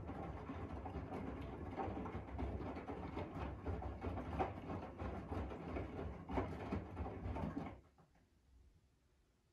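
Front-loading washing machine running its wash phase: the drum turns with a low hum while wet laundry tumbles and sloshes with irregular soft knocks. It stops abruptly about eight seconds in, as the drum pauses before reversing.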